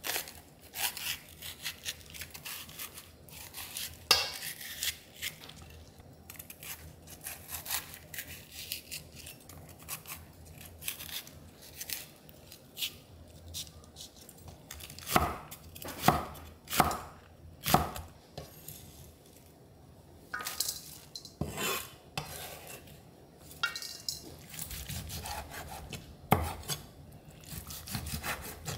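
Chef's knife slicing chili peppers, then squid, on a wooden cutting board: irregular taps and chops of the blade against the board, with a run of louder chops in the middle.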